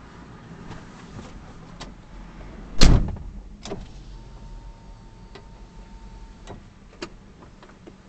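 A loud sharp thump about three seconds in, followed by a few lighter knocks and clicks, over a low steady rumble. A faint steady beep sounds for about two seconds in the middle.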